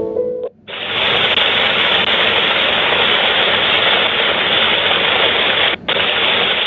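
Rain-sound white-noise track from a SpotCam BabyCam's soothing-sound menu: a steady, even hiss of rain that starts about half a second in, just after a piano lullaby stops, with a momentary dropout near the end.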